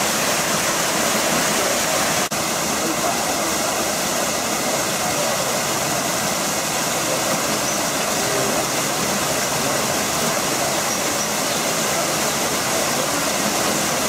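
Waterfall: a steady rush of falling water, with a brief break about two seconds in.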